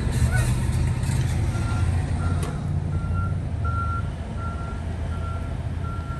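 Steady road and tyre rumble inside a moving Tesla Model X's cabin. About a second and a half in, a short high electronic beep starts repeating evenly, about one every three-quarters of a second, the pattern of a vehicle warning beeper.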